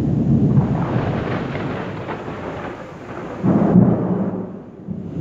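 Thunder: a long, low rumbling roll that slowly fades, then a second peal that starts suddenly about three and a half seconds in and dies away within a second or so.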